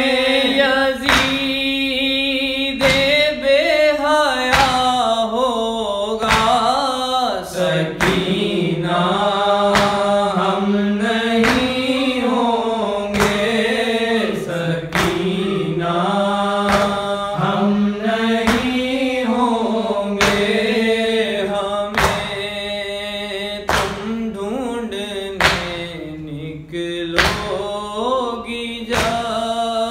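Man singing a noha, a Shia lament in Urdu, in a chant-like melody over a held low hum. A sharp thump about once a second keeps the beat.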